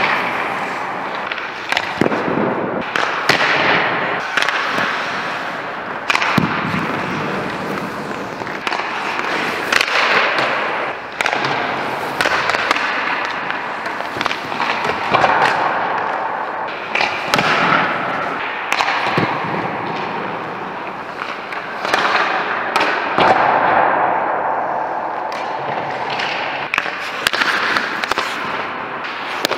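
Hockey sticks striking pucks and pucks smacking off the goalie's pads, net and boards in an indoor ice rink, a sharp crack every few seconds, over the steady scrape of skates on ice.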